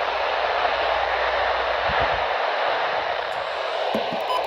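Radio static: a steady hiss from a radio receiver tuned to a weather-radio frequency that is not coming in, with a few faint clicks near the end.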